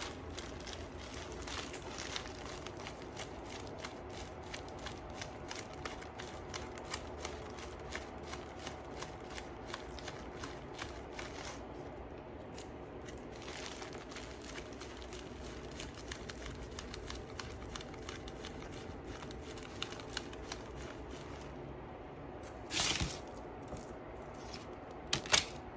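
Small beads clicking and rattling as they are picked up and threaded onto a beading strand, a run of light irregular ticks over a steady faint hum. A louder rustle comes about 23 seconds in, and a couple of sharp clicks follow near the end.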